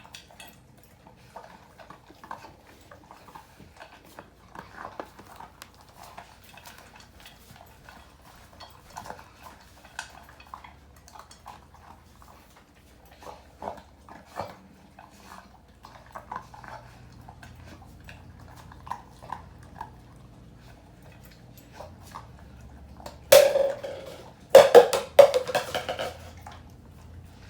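A Doberman eating from her bowl: small scattered crunches and clicks of chewing and of the bowl being nudged. Near the end come several loud, sharp knocks with a short ringing tone.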